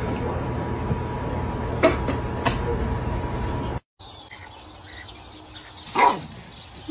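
Steady room hum with a couple of faint short sounds. After a cut, a dog gives one loud, short yelp about six seconds in, falling quickly in pitch.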